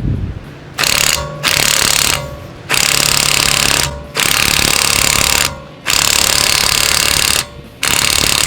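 Hychika 18 V cordless impact wrench hammering in six bursts of one to one and a half seconds each, working a car wheel's lug nut loose.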